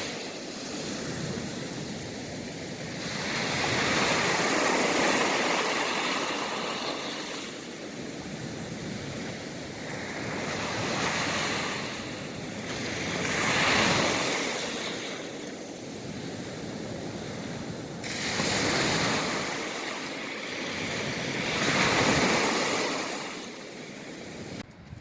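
Sea waves breaking and washing onto the shore. The sound swells and falls away in surges every three to five seconds.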